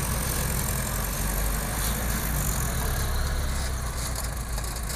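Diesel engine of a loaded Mitsubishi Canter light dump truck running steadily at low revs as the truck creeps across rough ground.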